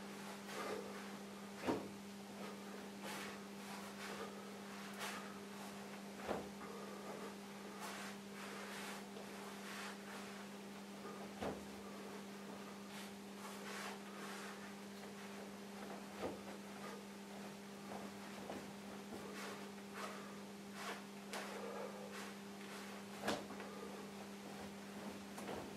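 Steady electrical hum, with soft rustling and a few scattered thumps from the feet and clothing of a person performing the Wing Tsun Biu Tze form.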